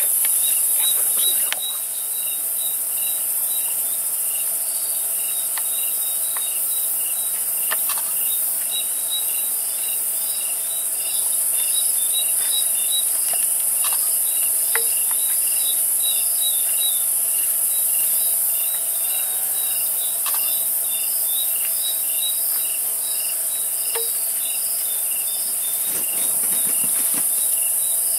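Night insect chorus of crickets and other insects: a continuous high chirring with a regular pulsed chirp repeating about twice a second. A faint steady hum and a few soft ticks lie beneath it.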